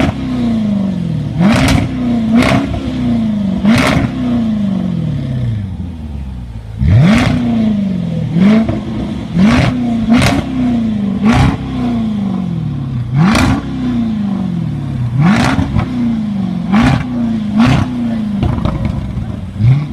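Jaguar SVR's supercharged 5.0-litre V8 revved in repeated quick throttle blips, each rising sharply and falling away over about a second, with sharp crackles and pops from the exhaust on many of them. There is a short pause in the blips about six seconds in.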